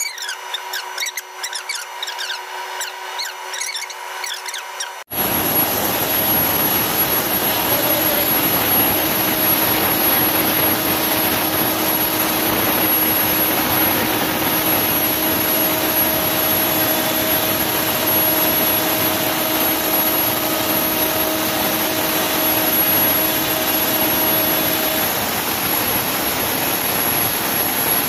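Ingersoll Rand air compressor running: a loud, steady rush of air with a faint hum that cuts in abruptly about five seconds in. Before it there is a quieter stretch of clicks and steady tones.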